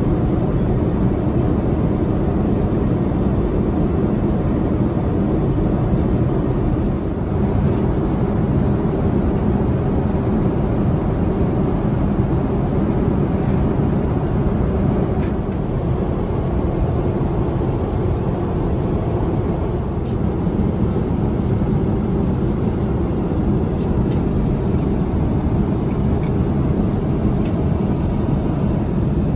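Steady cabin noise of an Airbus A350-900 airliner in cruise: a constant low rush of airflow and engine noise heard from a window seat.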